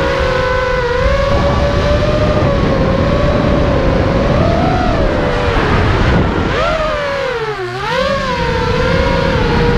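Brushless motors and 5-inch propellers of a QAV-R FPV racing quadcopter whining steadily in flight, with a rough rumble of wind and frame vibration underneath. About eight seconds in the pitch drops sharply as the motors slow, then rises again.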